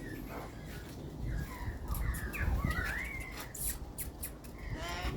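Australian magpies calling, a run of short warbling and gliding whistles, with a few sharp clicks near the end.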